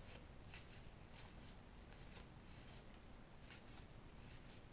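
Faint, soft swishes and flicks of Magic: The Gathering trading cards being slid one at a time off a stack into the other hand, about every half second, irregularly.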